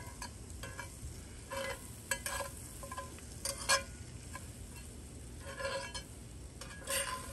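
Diced peppers and onions sizzling in a hot cast iron skillet, stirred with a metal spatula that scrapes and taps against the pan in several short, irregular strokes.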